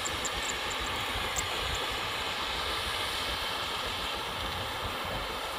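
Rice combine harvester engine running steadily in the field, with wind buffeting the microphone as a low, fluttering rumble.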